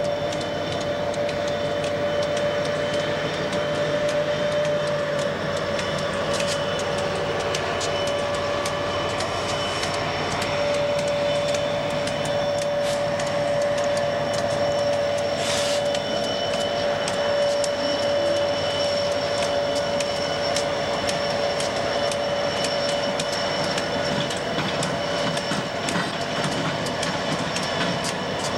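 CSX SD70MAC and AC4400CW diesel-electric locomotives leading a unit coal train rolling past, a steady rumble with wheel clicks over the rail joints and a steady tone held through most of the passage.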